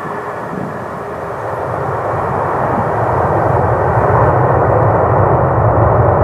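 Boeing 737-800 jet engines (CFM56-7B) during takeoff: a loud, steady rushing noise that grows louder from about two seconds in. A faint high whine fades out in the first second.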